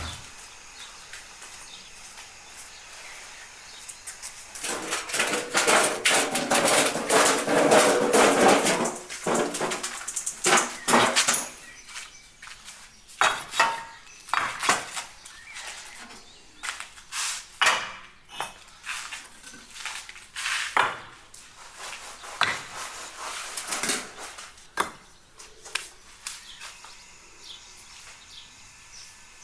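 Kitchen handling sounds from food preparation: a few seconds of rustling or scraping, then a long, irregular series of separate knocks and clinks of utensils and dishes.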